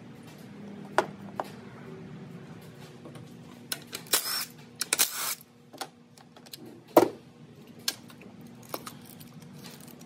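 Clicks, knocks and rattles of ignition coil packs and their plastic electrical connectors being unclipped and pulled from the valve cover of a 2006 Toyota Corolla 1.8 with the engine off, the loudest knock about seven seconds in. Two short scraping rushes come about four to five seconds in.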